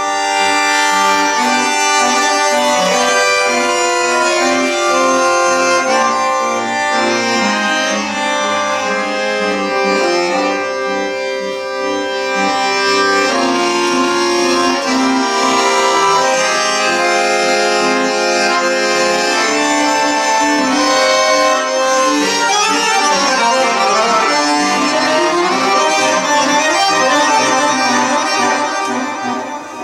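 Accordion music: a melody over sustained chords, with quicker note runs in the last several seconds.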